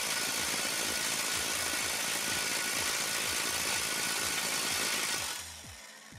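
Air impact wrench hammering at a nut on a VW Polo 86c steering knuckle, one long steady run that stops a little over five seconds in and dies away.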